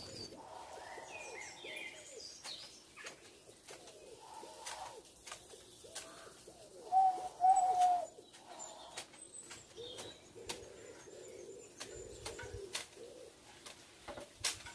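Pigeons cooing in repeated low phrases while small birds chirp, with sharp clicks of hedge shears snipping conifer branches. Two louder short calls come near the middle.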